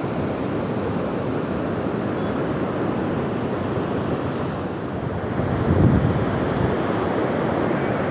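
Sea surf washing steadily onto a beach, with wind on the microphone. A louder low rush of wind or surf comes about six seconds in.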